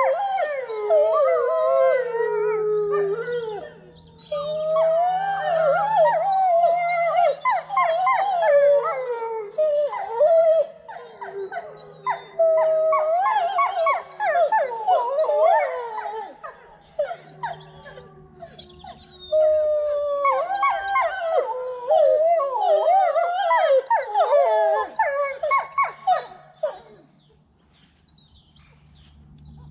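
A group of wolf-like dogs howling together, several voices overlapping in long, gliding calls. The chorus comes in waves with short lulls and dies away near the end.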